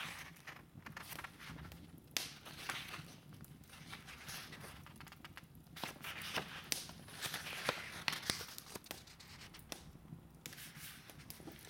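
Wood fire crackling in a fireplace: irregular sharp snaps and pops of burning logs over a soft hiss.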